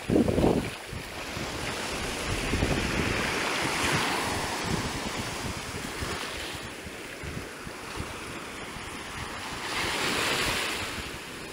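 Shallow surf foaming in over the sand and draining back, a steady wash with two swells of hiss as waves rush up, a few seconds in and near the end. Wind buffets the microphone throughout, loudest in a burst at the very start.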